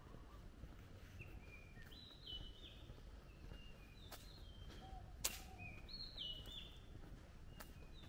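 A songbird singing faint phrases of clear whistled notes that step down in pitch, about two seconds in and again about six seconds in, over a low rumble. A sharp click a little after five seconds is the loudest sound.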